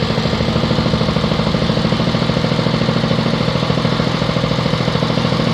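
Small engine running steadily on a catfish-feed pellet machine, with a fast, even pulsing beat.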